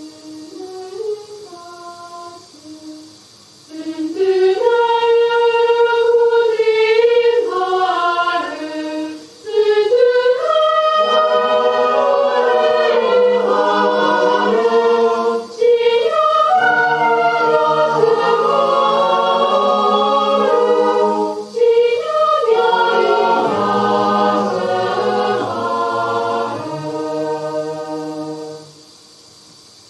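Mixed chamber choir singing a Romanian folk-song arrangement unaccompanied, in several-part harmony. It starts softly with a high line, swells fuller about four seconds in, low men's voices join around eleven seconds, with short breaks between phrases, and the singing stops near the end.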